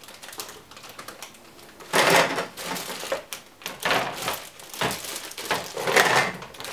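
Hard plastic Doc McStuffins toy doctor's case being handled and opened: clicks and clatter of the plastic lid and parts, with several short bursts of plastic-bag crinkling from the packed contents.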